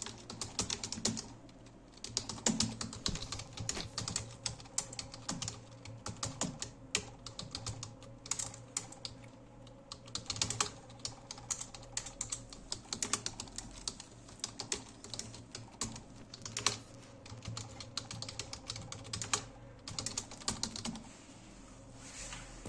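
Fast, irregular keystrokes on a computer keyboard: touch typing at about 55 words per minute, with short pauses between bursts and tapering off just before the end.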